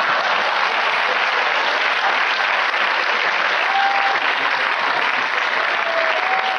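Studio audience applauding, a loud, continuous burst of clapping that holds steady throughout.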